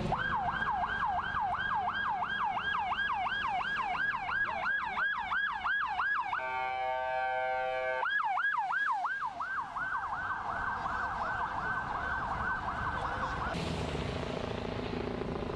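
Emergency vehicle siren on a fast yelp, rising and falling about three times a second. About six seconds in it is broken for a moment by a steady electronic horn blast, then the yelp resumes and cuts off near the end, leaving street noise.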